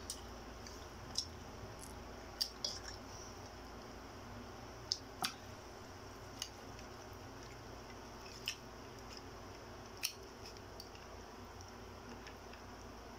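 Close-up eating sounds: scattered sharp little clicks and smacks of chewing and handling food with the fingers, about ten in all, over a steady low room hum.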